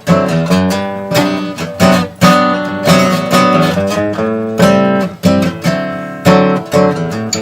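Gibson Hummingbird steel-string acoustic guitar strummed, chords struck in a steady rhythm and ringing between strokes.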